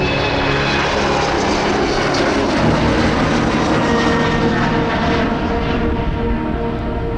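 Jet airliner taking off, its engines giving a steady, loud roar with a rough, crackling texture.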